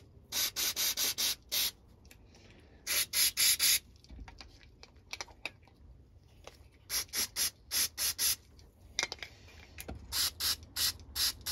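Aerosol carburettor cleaner sprayed in short hissing squirts, in several quick runs of four to seven bursts each, worked through the passages and holes of a carburettor body to clean it out.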